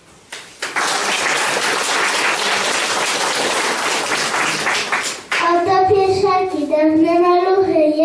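Applause and clapping start just under a second in and last about four and a half seconds. A child then begins singing into a microphone, with long held notes.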